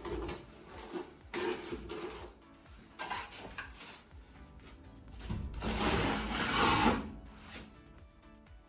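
Plastering trowel scraping plaster off a hawk and spreading a skim coat over plasterboard, in several scraping strokes, the longest and loudest about five to seven seconds in. Background music plays underneath.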